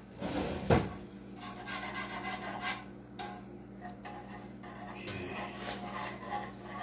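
Wire whisk stirring a cream sauce in a skillet, scraping and rubbing irregularly against the pan, over a steady low hum. A short knock sounds just before the first second.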